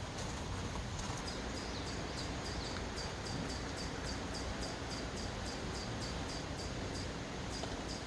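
Outdoor campsite ambience: a steady background hiss with a short, high chirp repeated about two to three times a second from about a second in, typical of a small bird calling.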